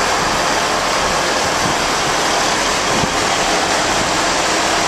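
First Great Western Class 158 diesel multiple unit running past at close range: a steady, even rush of diesel engine and wheel-on-rail noise.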